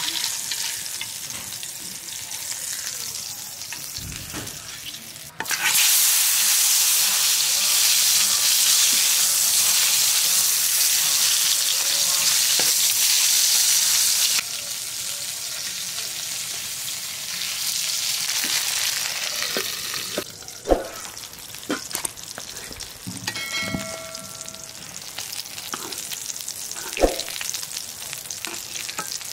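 Pangas fish frying in hot oil: a steady sizzle that suddenly grows much louder about five seconds in and drops back down about nine seconds later. A few sharp knocks sound in the last part.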